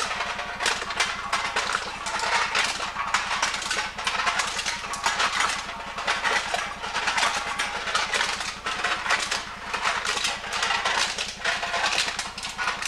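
Aluminum can crusher running: a steady low hum under a rapid, continuous clatter of aluminum cans being fed through, crushed and dropping into the catch box.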